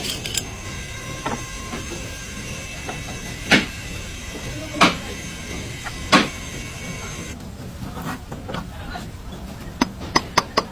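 Hand tools working on metal during a CV axle replacement: three sharp knocks about a second and a half apart, then a fast run of clicks near the end.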